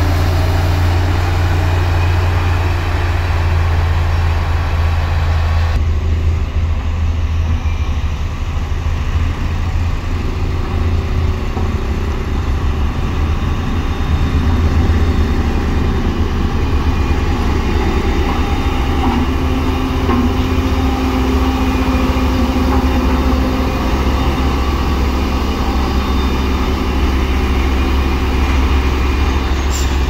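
Heavy diesel engines of road-building machines running steadily. The sound changes abruptly about six seconds in, and from then on it is a LiuGong single-drum roller's diesel engine as the roller drives over the loose rock road base.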